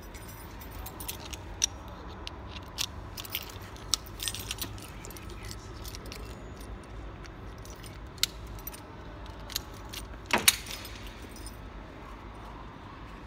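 Keys jangling and clinking in a hand, in a run of small clicks, then a louder sharp knock about ten seconds in.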